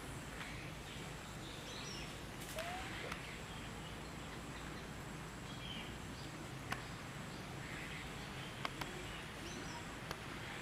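Forest ambience: a steady background hiss with faint, scattered bird chirps and a few sharp clicks.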